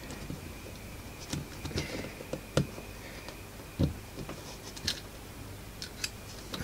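Scattered light clicks and taps of hard plastic being handled: a rewireable mains plug and its stiff cover being worked onto a power cord by hand.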